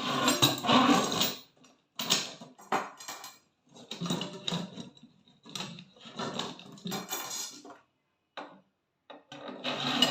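Metal parts clinking and clattering in a string of short, irregular bursts with brief pauses between them.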